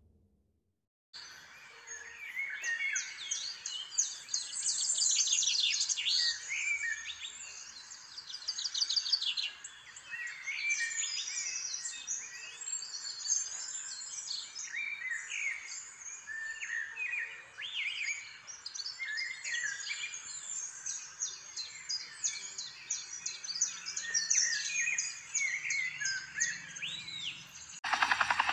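Many songbirds chirping and singing together: a busy chorus of short high calls, trills and quick up-and-down whistles that starts about a second in. Just before the end, a rapid, even buzzing sound cuts in.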